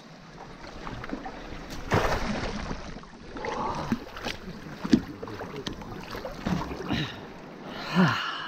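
Seawater splashing and sloshing around an action camera held at the surface by a swimmer, in irregular splashes, the loudest about two seconds in.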